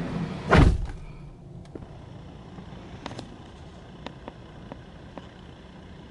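A pickup truck's door shut with one heavy slam about half a second in, cutting off the outside noise; after it, the quiet of the closed cab with a few light clicks.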